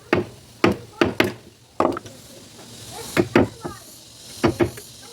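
Mallet strikes on a carving chisel cutting into ironwood: irregular sharp knocks, some in quick pairs, with short gaps between.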